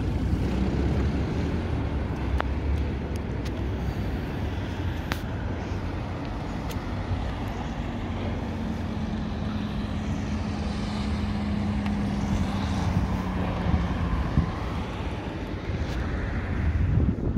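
City street traffic: the continuous noise of motor vehicles running and passing, with a steady engine hum that holds for several seconds in the middle.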